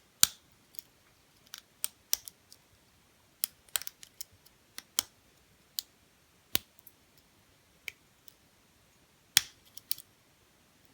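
Sharp, irregularly spaced metallic clicks from a lock pick and tension wrench working the pin tumblers of a Kasp 14040 padlock during single pin picking, the pins clicking as they are lifted and set. The loudest clicks come just after the start and about nine seconds in.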